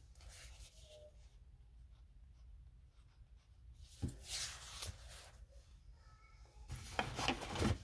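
Rustling and scraping of packaging being handled, in two short spells: one about four seconds in and a louder one near the end, over a faint low hum.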